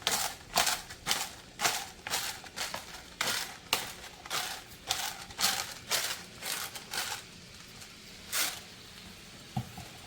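Pepper grinder twisted over the pan in short, crunchy grinding strokes, about two a second for some seven seconds, then one more stroke near the end.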